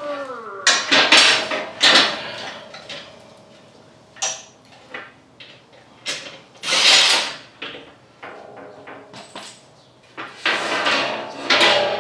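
Metal tools and parts being handled under the truck: a series of separate clanks and knocks, with a ringing metallic clang near the end.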